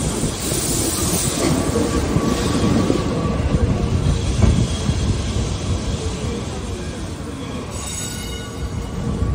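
Vintage Remodelado tram on Lisbon's 28E line running along its street rails, heard from inside the car at an open window: a dense rumble and clatter of wheels and car body, with a high hiss of wheel squeal about a second in.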